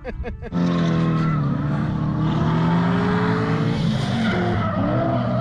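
A drift car's engine held at high revs, its note wavering slightly, over the hissing squeal of tyres sliding sideways. It starts abruptly about half a second in.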